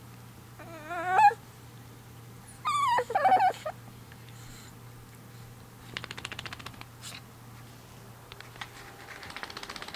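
Shih Tzu–Chihuahua puppy whining while having its ear scratched: a wavering cry that rises in pitch about a second in, a louder wavering cry that falls in pitch around three seconds, then softer rapid fluttering sounds around six seconds and again near the end.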